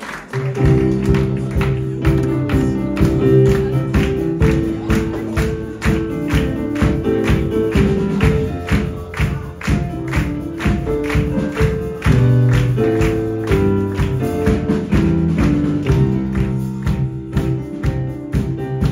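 Music with a steady beat and held notes.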